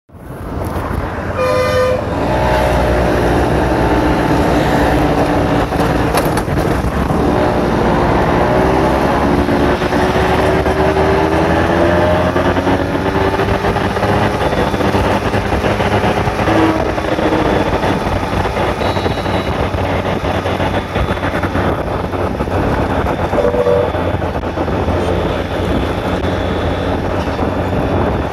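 Steady rush of wind and road noise from riding a motor scooter in highway traffic. A vehicle horn toots briefly about a second and a half in and again near the end. Another engine's pitch rises and falls in the first half.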